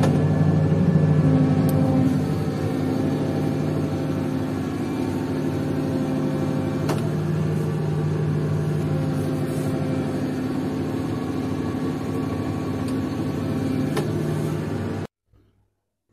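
Tractor engine running steadily under load while working a manure spreader, with a few faint sharp knocks. The sound cuts off abruptly near the end.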